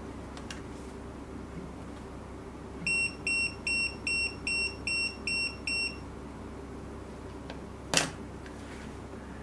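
Retekess TD158 guest pager beeping eight times in a quick, even series of short high beeps, with no vibration buzz: its vibration mode is switched off. A single knock follows near the end.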